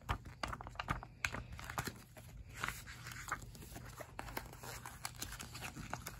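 Paper pages of a hardcover book being handled and flipped: a string of quick, irregular paper rustles and flaps.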